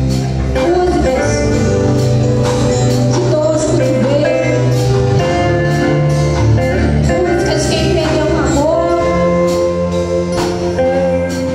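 Live worship song: a woman singing lead through a microphone over amplified electric guitar and band accompaniment, with a steady beat.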